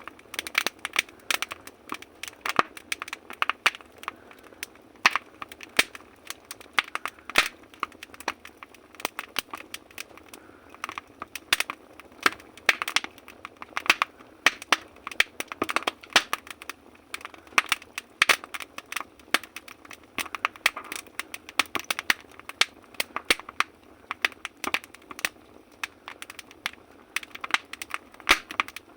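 Firewood crackling and popping as it burns in a wood stove: many irregular sharp snaps over a faint steady hiss of the flames.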